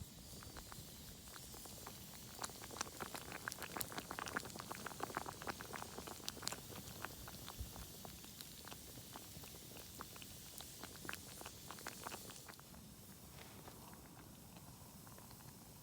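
Rapid, irregular small pops and crackles from cooking over a campfire, thinning out after about twelve seconds.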